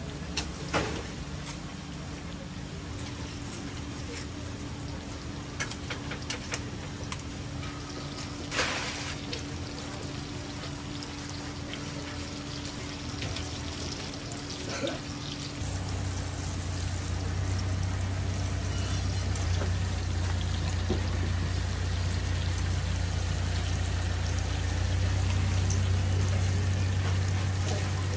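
Tteokgalbi beef patties sizzling on a hot flat-top griddle, with a few sharp scrapes and taps of a metal spatula on the steel. About halfway through, the sizzle gets louder and a steady low hum comes in.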